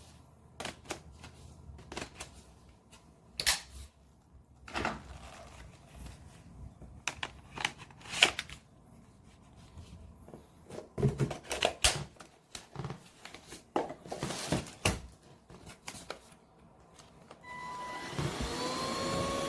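Irregular plastic clicks and knocks as a UNINELL UV3 cordless stick vacuum is handled. Near the end its motor switches on with a rising whine and then runs steadily.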